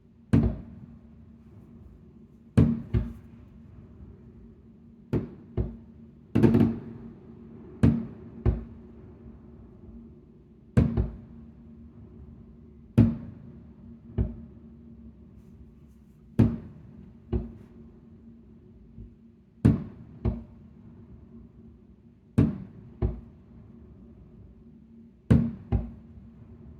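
Fireworks going off one after another, sharp booms at irregular intervals of one to three seconds, some in quick pairs, each trailing off briefly, over a steady low hum.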